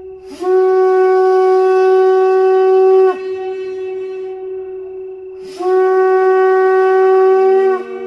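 Ram's horn shofar blown in two long, steady blasts of about two and a half seconds each, each opening with a short upward slide into the note.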